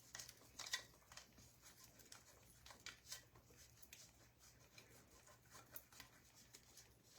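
Near silence with faint, scattered light ticks and patter: cheese being sprinkled onto a casserole in a dish.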